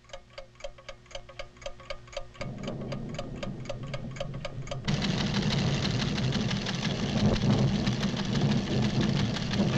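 Seismograph ticking steadily, about four ticks a second, with a low hum coming in under it partway through. About five seconds in the ticking stops and a loud, low rumble takes over, the sound of the volcano stirring with renewed tremors.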